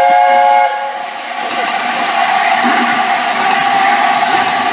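LNER A4 Pacific 60009 Union of South Africa sounds a short blast of its chime whistle, several notes at once, lasting well under a second at the start. A steady hiss of escaping steam follows.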